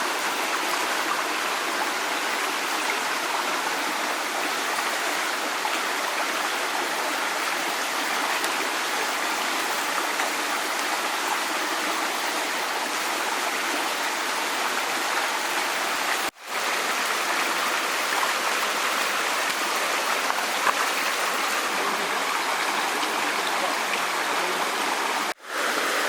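Steady rush of a flowing stream, an even splashing hiss, broken twice by sudden very short gaps in the sound.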